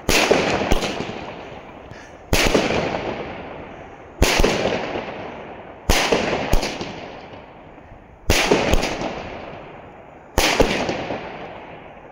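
Consumer firework battery firing aerial bursts: six sharp bangs about two seconds apart, several followed closely by a second crack, each dying away over the next second or two.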